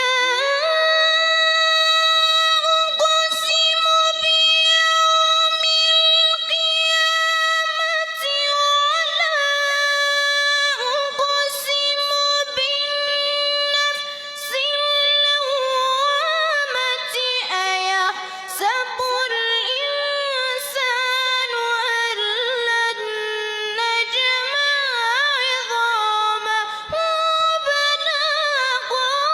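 Quran recitation in a high, clear voice: one long held note for about the first eight seconds, then melodic runs that waver up and down between held notes.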